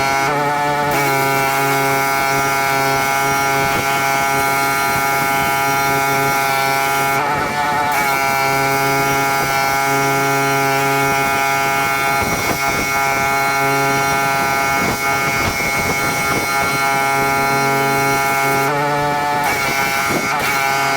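Petrol pressure washer engine running steadily under load, with the hiss of the water jet over it. The hiss cuts out briefly three times, and the engine note wavers each time.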